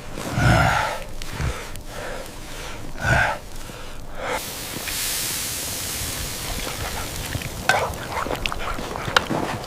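Two loud breathy gasps in the first few seconds. About four seconds in, a steady rushing hiss of blizzard wind sets in, with scattered sharp clicks near the end.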